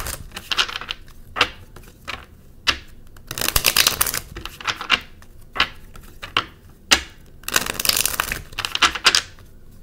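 A deck of tarot cards being shuffled by hand: three longer bursts of rapid card rustling, near the start, around the middle and near the end, with single sharp card snaps and taps between them.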